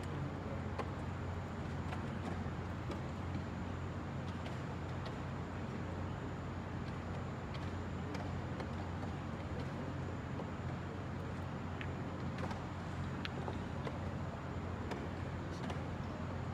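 Light, irregular clicks of wooden chess pieces set down on the board and of a chess clock being pressed during a blitz game, over a steady low hum and rumble of room noise.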